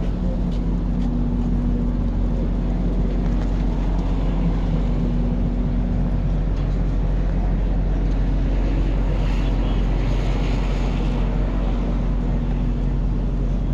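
A vehicle engine running steadily with a low hum. Its tone shifts slightly a few times, and a brief rush of higher-pitched noise comes about two-thirds of the way through.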